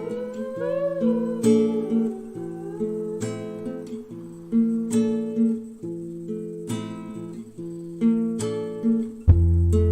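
Background music: acoustic guitar chords struck about every second and a half and left to ring, with a deeper bass note coming in near the end.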